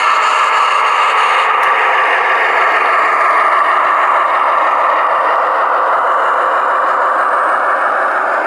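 Model railroad locomotive running on the layout: a steady mechanical running sound with no deep bass, easing slightly near the end.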